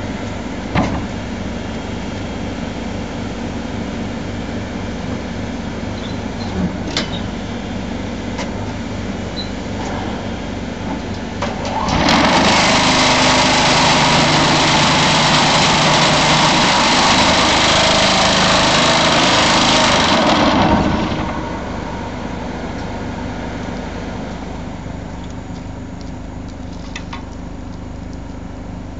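Excavator-mounted piling rig driving an AZ 47 steel sheet pile: the machine runs steadily, then about 12 seconds in the pile driver starts with a loud, dense rattling blast that lasts about eight seconds and stops abruptly, leaving the steady engine sound again.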